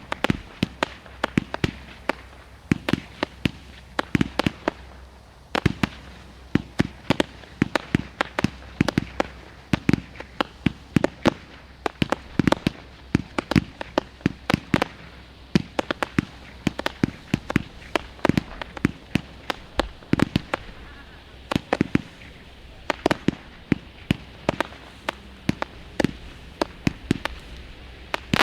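Low-noise retail fireworks going off in a continuous, irregular stream of sharp pops and crackles, several a second.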